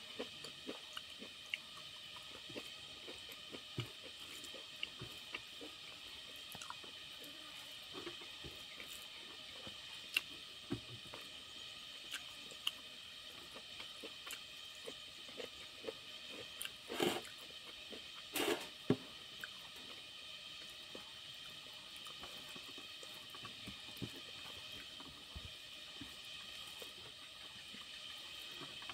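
Fingers mixing and gathering rice with curry on a steel plate: soft wet squishing and small clicks of fingertips against the metal, with a couple of louder scrapes a little past the middle, over a steady high background drone.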